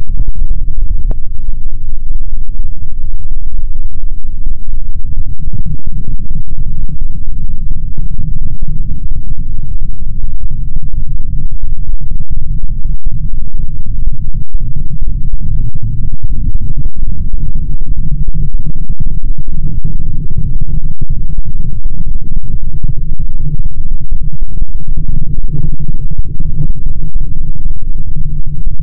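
Loud, distorted bass-heavy electronic rumble, low and dense with no clear beat or melody.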